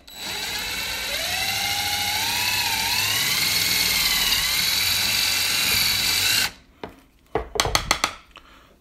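Cordless power drill running as its bit bores out a rivet hole in an orange plastic knife handle scale, enlarging it to take screw hardware. It runs steadily with a whine that rises and wavers as the bit cuts, then stops about six and a half seconds in. A few light clicks of handling follow.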